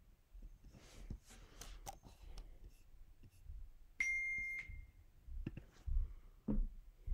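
A single electronic beep, one steady high tone lasting about half a second, about four seconds in. Around it are soft rustling, small clicks and a couple of low thuds near the end.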